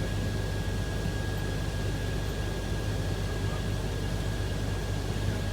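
Steady low mechanical hum with a faint, thin high whine over it, unchanging throughout.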